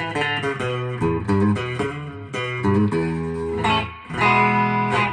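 Electric guitar played clean through a 1976 Music Man HD130 tube amplifier head at a moderate home-practice volume: a run of picked notes and chords, then a fuller chord held from about four seconds in.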